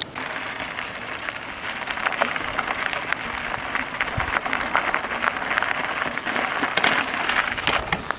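Bicycle rolling over rough ground: a steady crunching hiss from the tyres with many small clicks and rattles.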